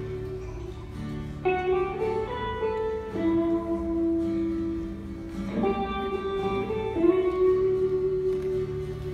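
Two guitars playing a slow melody in long held notes, the pitch changing every second or two.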